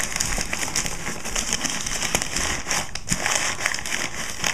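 Newspaper being crumpled and pushed into the gaps of a small shipping box as packing: a steady run of dense crinkling and crackling.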